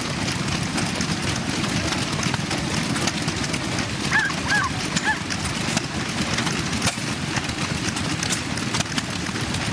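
Steady low rumble of an engine running, with scattered sharp clicks, and a dog yipping three times about four seconds in.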